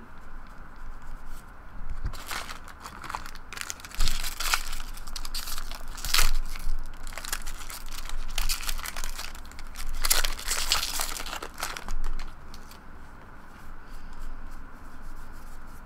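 Foil wrapper of a 2013 Bowman Jumbo baseball card pack crinkling and tearing as it is opened, in repeated bursts of rustling. Softer rustling of the cards being handled near the end.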